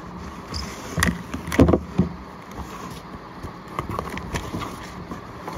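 Cardboard shipping box being handled and opened by hand: a few short knocks and scrapes of the cardboard, the loudest about a second and a half in.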